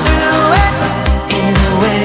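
Upbeat pop music with a steady drum beat and a melody line.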